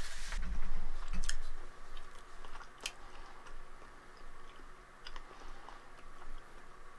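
Camera and microphone handling noise as the camera is moved: a low rumble with a few knocks in the first second, then faint scattered small clicks and rustles in a quiet small room.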